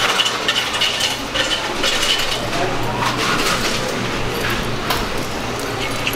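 Fast-food restaurant din: scattered clinks and clatter of dishes and cutlery over an indistinct murmur of voices.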